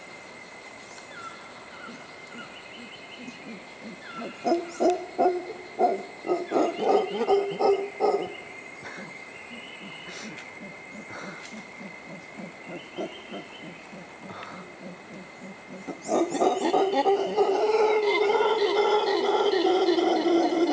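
Mantled howler monkeys calling. About four seconds in there is a run of deep grunts, roughly three a second. From about sixteen seconds a loud, continuous, deep howl takes over.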